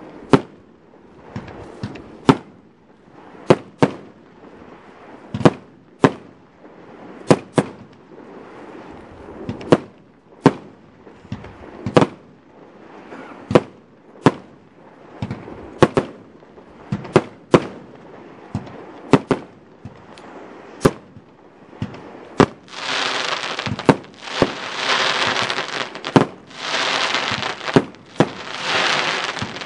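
Consumer firework battery firing shot after shot, each a sharp report, irregularly one to two seconds apart. About 22 seconds in, a dense, continuous crackle sets in under the continuing reports.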